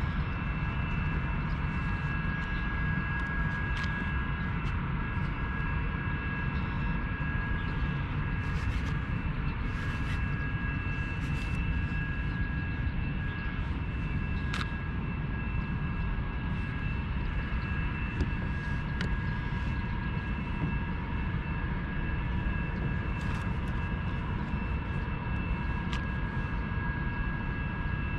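Steady low rumble of wind on the microphone over open water, with a faint, steady high whine above it and a few light clicks.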